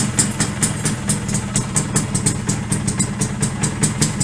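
Yamaha V80's single-cylinder two-stroke engine idling steadily, with an even pulsing beat.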